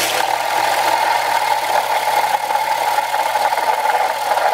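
Central Machinery bench belt sander running steadily, with a small wooden plug held against the moving belt and being sanded down.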